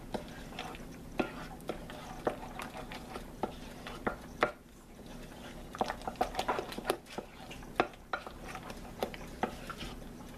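A utensil stirring and scraping a thick cream cheese and sour cream mixture around a mixing bowl, with irregular clicks and taps against the bowl, over a low steady hum.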